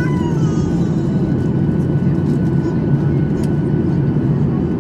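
Steady low roar inside the cabin of a Boeing 737-800 in flight, from its CFM56 turbofan engines and the air rushing past the fuselage, heard at a window seat over the wing.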